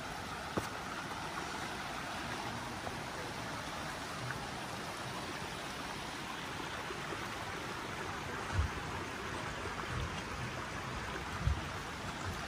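Steady rush of running stream water, with a few short low thumps in the second half.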